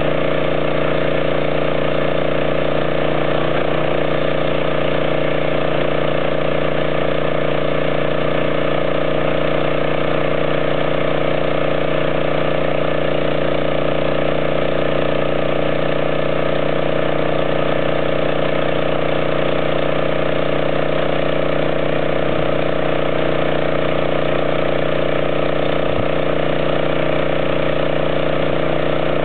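An engine running steadily at an unchanging speed, with no revving or change in pitch.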